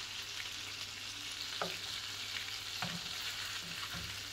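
Butter frying in a pan with green cardamom and strips of orange peel: a steady sizzle with small crackles. A plastic spatula stirring the pan gives a few light knocks.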